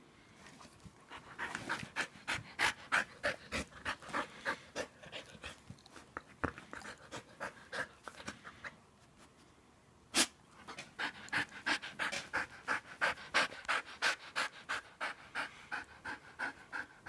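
A dog panting quickly and steadily, about three breaths a second. The panting stops for a moment in the middle, where there is one short sharp click, then resumes.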